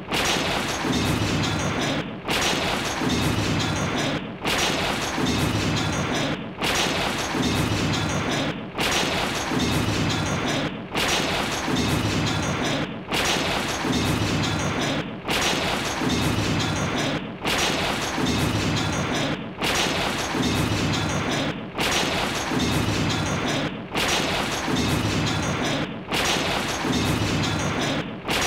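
A monster's foot crashing down on a wooden house, crunching it into splintering debris. The same crash repeats in a loop, each starting suddenly, about every two seconds.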